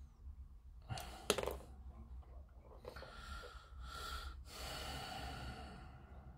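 A few light clicks about a second in, then two long breaths close to the microphone.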